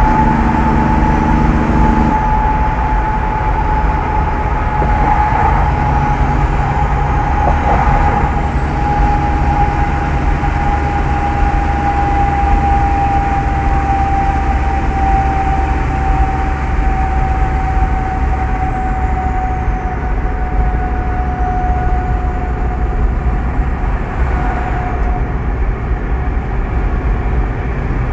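Diesel semi truck running steadily with a deep rumble and a clear turbo whistle that drifts slowly down in pitch.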